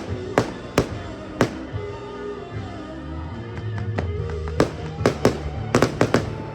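Fireworks bursting in a series of sharp bangs over loud accompanying music, with the bangs coming in quick succession near the end.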